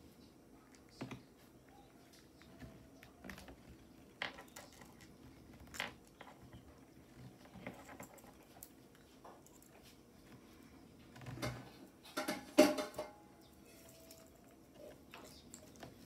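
Irregular clicks and light knocks of a black plastic lighter being handled and worked in the hands, with a louder cluster of clatter about twelve to thirteen seconds in.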